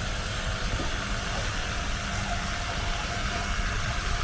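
Steady outdoor noise: a low rumble with an even hiss above it, with no distinct events.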